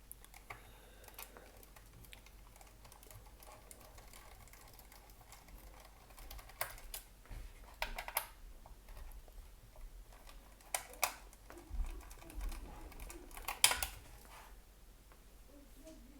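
Screwdriver and hands working screws out of a wireless access point's casing: a quiet stretch of light handling, then from about six seconds in a scattered run of sharp clicks and knocks of the tool and parts against the housing.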